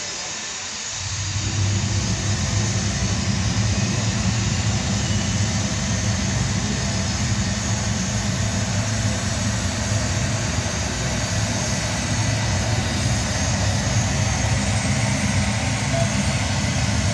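Recorded jet-airliner takeoff sound played over the model airport's loudspeakers as a model Airbus A380 rolls down the runway: a steady low rumble with a hiss over it, starting about a second in.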